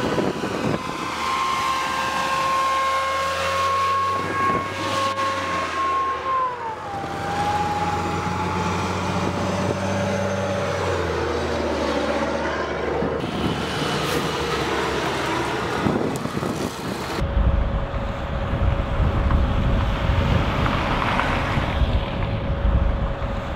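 Stryker eight-wheeled armoured vehicles driving past on a paved road: diesel engine drone with a whine that drops in pitch as one passes about six seconds in. Near the end it changes abruptly to wind buffeting the microphone over a steady hum.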